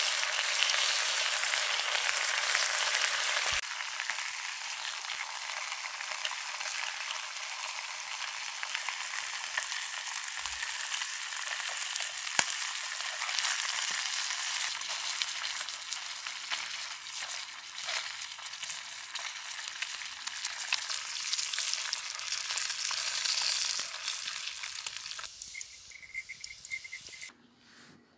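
Bacon frying in a pan over a small wood-burning stove: a steady sizzle, louder for the first few seconds. A few light clicks come from metal tongs turning the strips.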